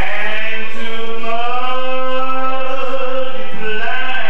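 A man singing into a microphone, holding one long note for about three seconds before rising to a higher note near the end.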